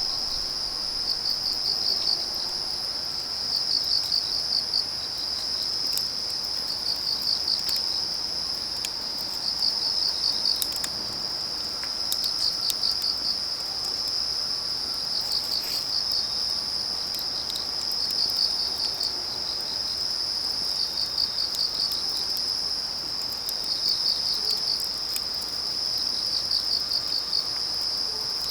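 Autumn crickets chirping: a continuous high trill overlaid with bursts of rapid pulsed chirps about every two to three seconds. Scattered sharp crackles from burning firewood run through it.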